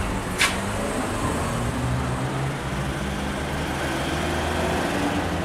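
Steady low rumble of a running motor vehicle engine, with one short sharp click about half a second in.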